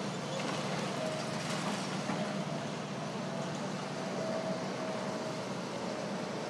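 Tracked excavators' diesel engines running steadily while they work a rubble pile, a low hum with a faint wavering whine above it.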